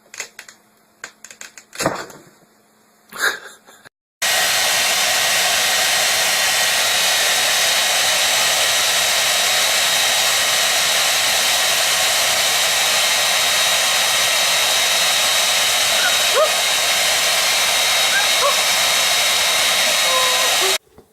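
A few short knocks, then a loud steady blowing noise of a small motor-driven blower with a thin high whine, starting about four seconds in and cutting off suddenly just before the end. A few faint short squeaks sound over it near the end.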